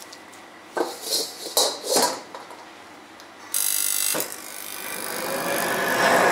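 A gloved hand wipes the inside of a carbon-steel wok in a few scraping strokes. A brief hiss and a click follow. Then the gas wok burner lights, and its flame makes a steady rushing noise that grows louder toward the end.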